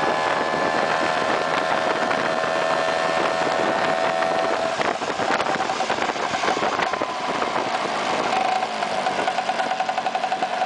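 Vespa PX scooter's single-cylinder two-stroke engine running at a steady cruising speed with wind rush. It eases off about halfway through and falls in pitch as the scooter slows, then runs with a pulsing beat near the end.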